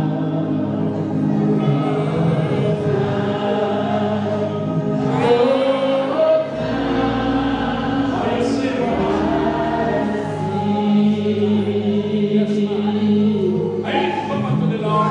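Congregation singing with a choir and band accompaniment, in a large room.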